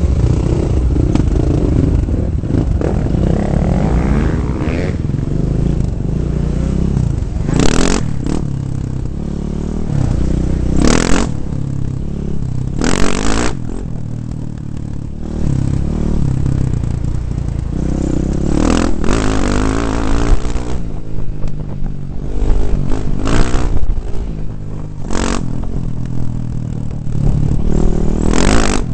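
2009 KTM 450 dirt bike's four-stroke single-cylinder engine running over a rough dirt track, its revs rising and falling with the throttle, with the clatter and scrape of the bike over the ruts. Several short, loud rushes of noise break in along the way.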